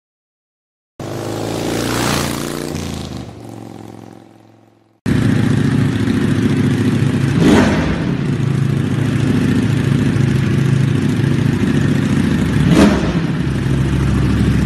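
Ducati sportbike engine running on a rear stand, starting abruptly and idling steadily, with two brief throttle blips a few seconds apart. Before it starts, a short pitched sound fades away.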